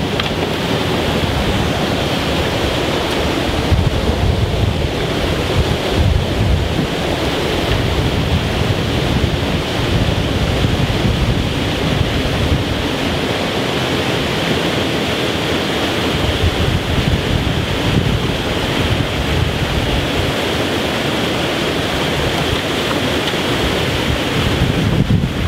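Water pouring over a river weir: a steady, loud rush of white water.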